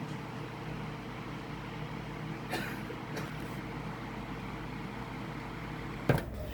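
Rebuilt Lasko B20200 box fan running steadily on its low setting: an even rush of air with a faint hum. A single sharp knock comes near the end.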